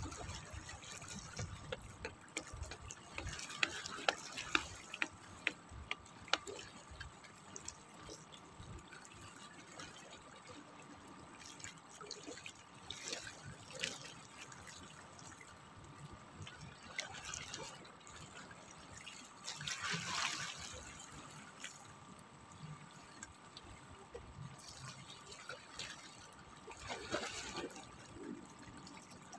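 Small sea waves lapping and splashing against the rocks of a breakwater, with scattered sharp drips and trickles and a bigger wash about two-thirds through.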